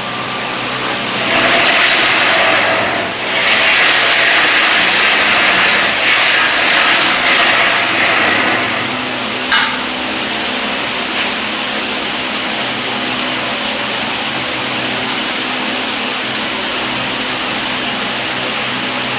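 Steady mechanical workshop noise with a low hum under it. A louder hiss rises about a second and a half in and lasts until about nine seconds, and a single sharp click comes just after.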